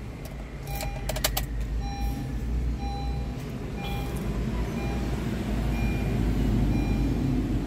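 A few sharp clicks, then a car's dashboard warning chime beeping about once a second, six times, in a 2017 Honda Mobilio RS with its ignition switched on. A low rumble builds toward the end.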